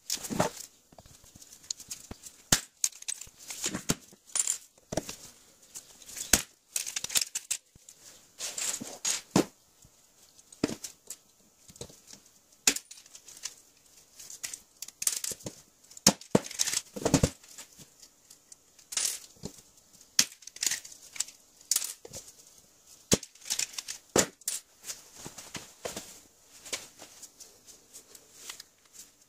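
Irregular clicks, clinks and short rustles of hand work on a wooden workbench: a hand pop-rivet gun, loose steel pop rivets and a cast jack body being handled and set down while the jack's base plate is riveted on.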